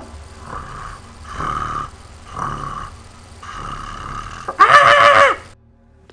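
Kitten meowing in a series of four or five calls, the last one loud and drawn out, after which the sound cuts off abruptly.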